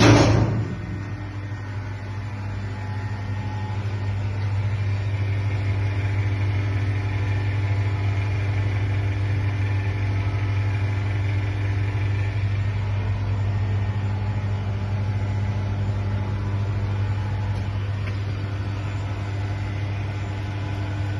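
Seydelmann AE130 industrial meat grinder running on 400 V three-phase power: a knock at the very start, then a steady electric motor and gearbox hum that builds slightly over the first few seconds and then holds even.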